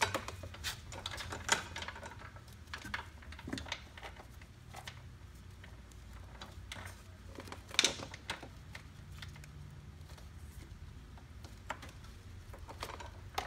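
Metal roller drive chain clinking and rattling in short, irregular bursts as it is handled and fed onto the track kit's sprocket, with a sharper clank about eight seconds in. A low steady hum runs underneath.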